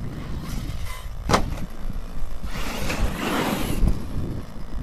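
Wind buffeting the microphone, with one sharp knock about a second in. About two and a half seconds in, an Arrma Nero 4WD BLX RC monster truck comes in close: its brushless motor and tyres on gravel swell and fade over about a second.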